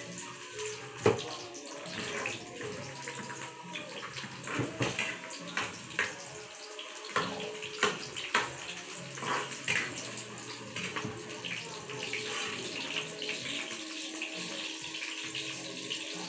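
Garlic sizzling in hot cooking oil in a frying pan, a steady crackling hiss. A spatula knocks and scrapes against the pan several times, the loudest knock about a second in.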